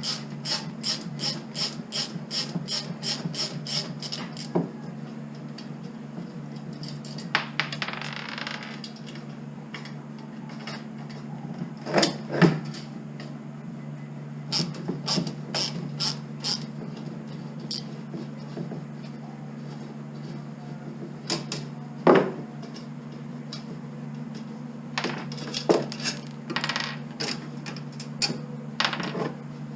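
Socket ratchet clicking fast and evenly, about four to five clicks a second, for the first few seconds as the handle's bolt is undone. Then scattered clicks and a few sharp metal clinks of tools and hardware being handled, over a steady low hum.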